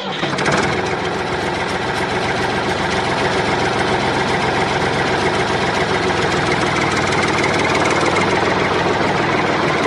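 Tractor engine sound running steadily with a fast, even chug. It starts abruptly and holds an even pace throughout.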